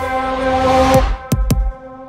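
Background electronic music: held synth chords with two sharp drum hits a little past the middle, thinning out briefly near the end.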